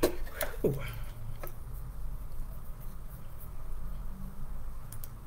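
A steady low hum, with a few light clicks and rustles as plastic deco mesh is handled and folded flat. A short falling tone comes about half a second in.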